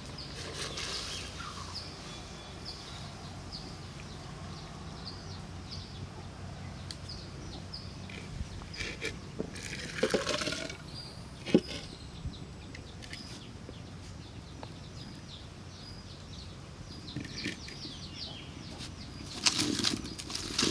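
Sambar poured out of a clay cooking pot into another pot about ten seconds in, a short pour rising in pitch as the pot fills, followed by a sharp knock of the pot. A small bird chirps repeatedly, about twice a second, through the first part, and a brief burst of noise comes near the end.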